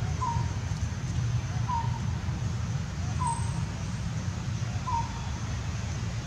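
A short animal call repeated evenly, about once every second and a half, over a steady low rumble.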